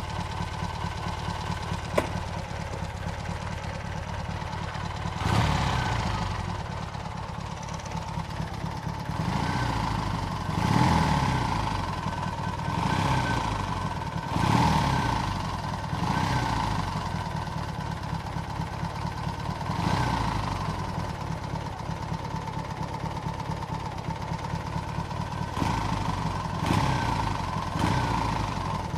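Harris-built Triumph T140 Bonneville parallel-twin engine running, its revs rising and falling every few seconds. There is a single sharp click about two seconds in.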